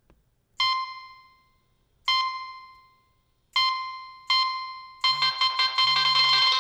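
Nokia 3220 ringtone playing through the phone's speaker: four single notes at one pitch, each ringing out and fading, then a fast, busy run of notes starting about five seconds in.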